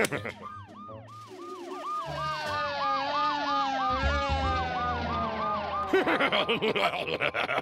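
Cartoon siren wailing in a quick repeating rise and fall, growing louder over the first few seconds; near the end it gives way to gleeful laughing.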